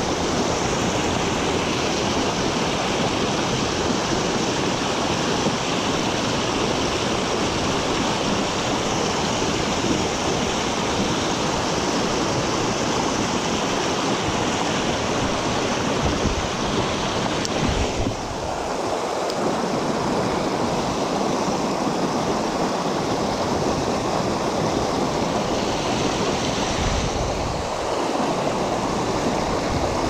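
Steady rush of river current flowing over rocks.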